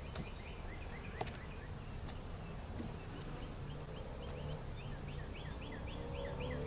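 A songbird singing phrases of short, quickly repeated high notes, several a second, over the low steady hum of honey bees at an open hive.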